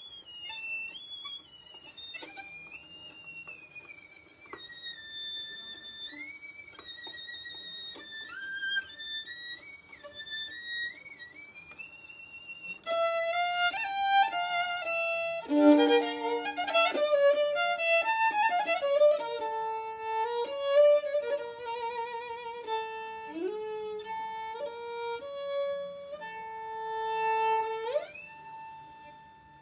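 Solo violin playing a slow, sliding melody. About 13 seconds in it grows louder and busier with quick runs of notes, and near the end it slides up into a long held note that fades away.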